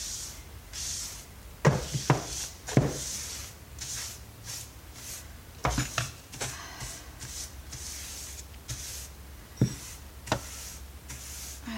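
Sweeping dust, twigs and debris with a brush: repeated scratchy swishes, with a few sharp knocks and taps in between.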